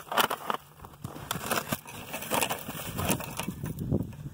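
Fish being dumped out of a plastic bucket onto snowy ice: a string of irregular thumps, slaps and scrapes, the loudest right at the start.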